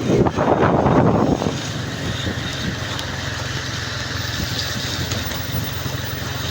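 Car driving along a road, with a steady low rumble of engine and tyres. A rougher, louder noise fills the first second and a half, then the rumble runs on evenly.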